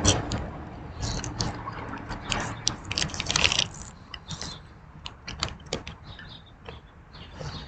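Someone biting and chewing crunchy candy-coated popcorn, an irregular run of crackling crunches. The crunches come thickest over the first few seconds and thin out after that.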